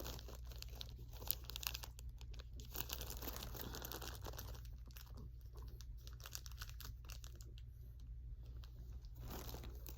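Packaging crinkling and rustling as small stitch markers are unwrapped and handled, with scattered light clicks. It thins out in the second half.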